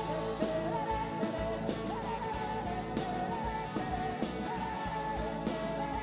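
Live rock band playing an instrumental passage: drums and bass under a high lead line that bends and wavers in pitch.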